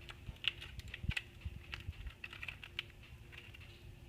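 Faint, irregular light clicks and taps as baked cupcakes are handled and pressed with the fingers.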